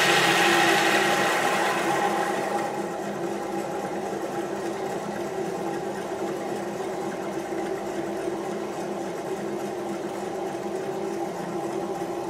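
Small homemade electric motor with a metal disc rotor running with a steady hum. A louder hiss at the start fades over the first two or three seconds, leaving only the steady running sound.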